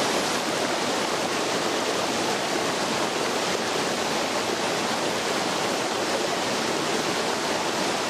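Shallow rocky stream rushing over boulders, a steady rush of water.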